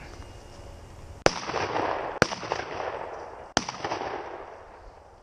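Three shotgun shots at a flushed gamebird: the first about a second in, the second just under a second later, and the third about a second and a half after that. Each is followed by a rolling echo that fades away.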